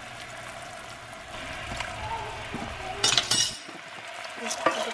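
Pad thai sauce of sugar, oil, water and fish sauce simmering in a small stainless saucepan as fish sauce is spooned in and stirred with a wooden spatula. A few sharp knocks of the spatula against the pan come about three seconds in, and again near the end.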